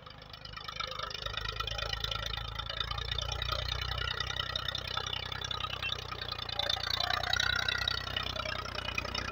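Massey Ferguson 240 tractor's three-cylinder diesel engine running under load as its front blade pushes soil, getting louder about a second in.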